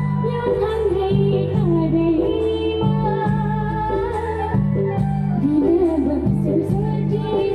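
A woman singing a Nepali song over instrumental backing with a repeating low bass pattern.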